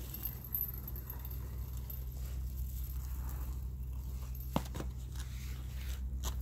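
A manual wheelchair rolling up on a concrete patio: faint rolling and handling noise over a steady low hum, with one sharp click about four and a half seconds in and another near the end.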